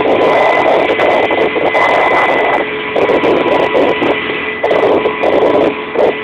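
Kamov Ka-26 helicopter in flight, heard from inside the cabin: its twin radial piston engines and coaxial rotors run loudly as a steady drone with a constant whine and a fast, uneven flutter.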